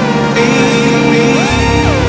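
Background electronic music: held synth chords with repeated swooping glides that rise and fall in pitch, and a low bass coming in about three quarters of the way through.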